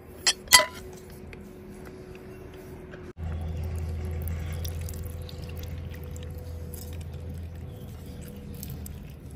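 A hand-held lemon press clicks twice as it is squeezed, then lemon juice drips and trickles into a wooden bowl. From about three seconds in, a steady low hum runs underneath.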